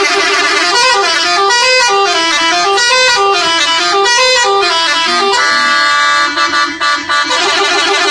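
Telolet horn on a bus, its multi-trumpet musical air horns playing a quick tune of stepping notes. About five seconds in it holds one chord for about two seconds, then the tune starts again near the end.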